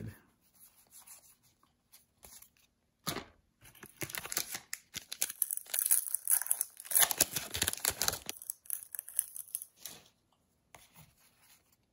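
Foil booster pack wrapper torn open by hand, a run of crackling, crinkling tears that starts about three seconds in, is loudest in the middle, and stops about eight seconds in.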